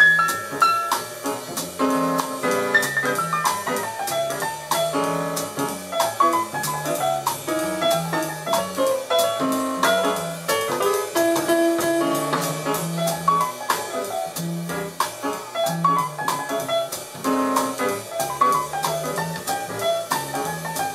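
Jazz with piano and drum kit, played back on a Teac A-4010GSL reel-to-reel tape deck.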